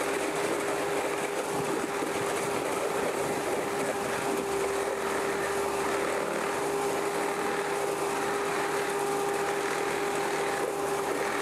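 Concrete pump running steadily with a constant whine over a noisy drone, as concrete is poured through its hose into insulated concrete forms.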